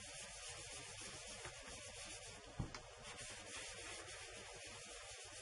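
Faint, steady scuffing of an inked foam sponge rubbed in small circular motions over embossed card stock. A single light knock comes about two and a half seconds in.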